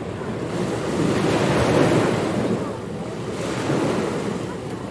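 Ocean waves breaking on a beach: a rushing surge that builds to its loudest about two seconds in and then eases off, with the next wave starting to build near the end.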